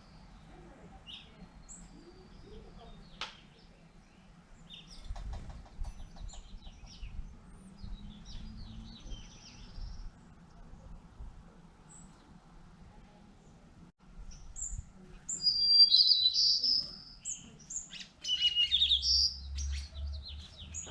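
Small birds chirping and calling in short high notes, scattered at first and then a louder run of rapid chirps in the second half.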